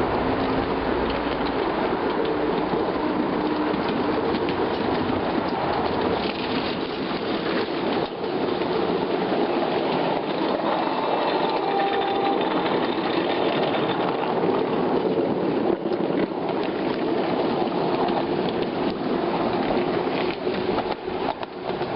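Ride-on 5-inch gauge model electric locomotive and train running along snowy rails: a steady mechanical running noise of motor and wheels on the track, with faint held whining tones.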